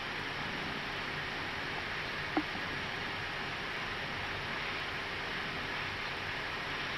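Steady, even hiss of an Airbus A319 cockpit as the jet taxis on idle engines, with one faint click about two and a half seconds in.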